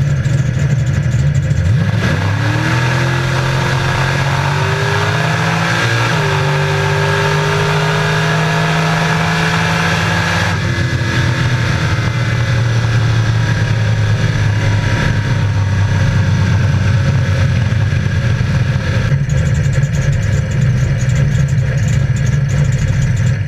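850 hp 1968 Pontiac Firebird drag car's engine heard from inside the cabin: running low at the start line, then launching about two seconds in, its note climbing through a gear change. About ten seconds in the throttle comes off sharply at the end of the run, and the engine winds down as the car slows.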